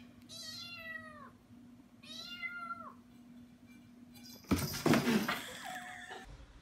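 A small kitten meowing twice, each meow about a second long and dropping in pitch at the end. Then comes a louder clattering thump and scuffle, the loudest sound here, as the kitten gets down from a chair onto a tile floor.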